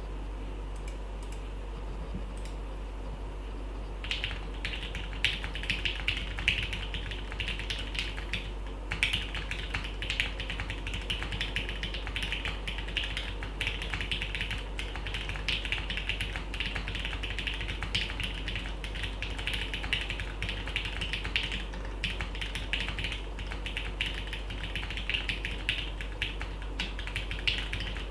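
Typing on a gasket-mounted acrylic 60% keyboard with lubed Gateron Milky Black linear switches on a polycarbonate plate. A few scattered keystrokes, then steady fast typing from about four seconds in, with a brief pause near a third of the way through.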